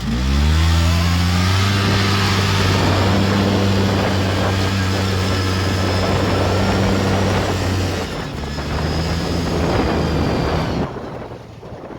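Two-stroke 400 engine of a 1996 Polaris Xpress ATV revving up and running hard at a steady high speed on a test ride after a top-end rebuild with a new cylinder and piston rings. Its note changes about eight seconds in and gets quieter near the end.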